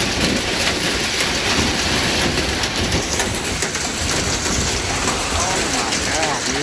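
Heavy monsoon rain with nickel-sized hail pelting down: a dense, steady patter of countless small impacts with no let-up.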